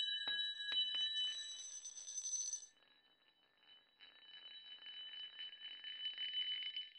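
High bell-like ringing tones, struck a few times in the first second and left to ring, break off after a couple of seconds. After a short gap a faint, fluttering high ringing returns and cuts off abruptly near the end.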